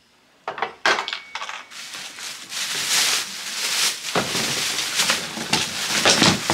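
Packaging rustling and crinkling, with knocks and clatter as items are handled and set down, starting about half a second in.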